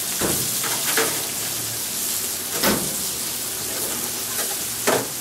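Steak, shrimp and fried rice sizzling steadily on a hot flat-top griddle, with a few short sharp taps and ticks scattered through.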